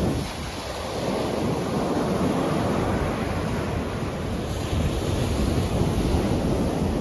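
Gulf of Mexico surf washing onto the beach, a steady wash of waves, with wind buffeting the microphone.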